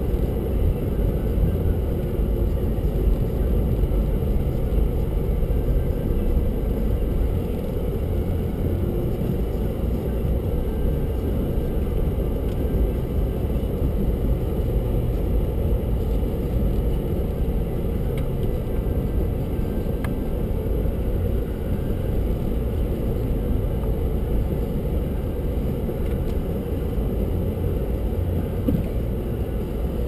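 Steady low rumble of a car's engine and tyres heard inside the cabin as the car drives slowly through snow.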